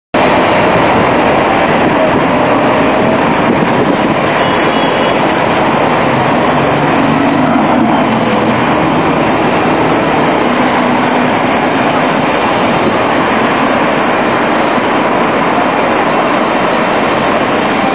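Steady city street and traffic noise, with a Bombardier Flexity NGT8 low-floor tram approaching along its track toward the stop.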